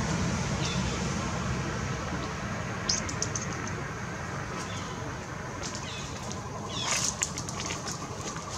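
Outdoor ambience: a steady low rumble, with a few short high chirps that fall in pitch and small clusters of sharp clicks about three seconds in and again near the end.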